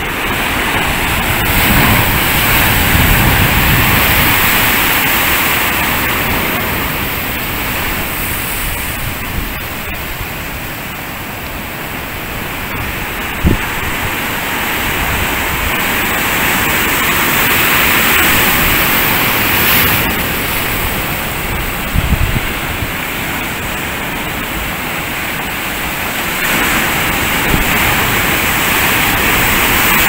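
Heavy ocean surf breaking over volcanic rocks: a steady roar of churning water and foam that swells and eases as the waves roll in every several seconds. There is one sharp knock about halfway through.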